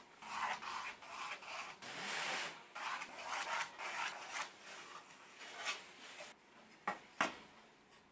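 Pencil scratching along a clear plastic set square as lines are ruled on a hardwood board, in a run of short strokes with the square rubbing on the wood between them. Two short sharp knocks about seven seconds in.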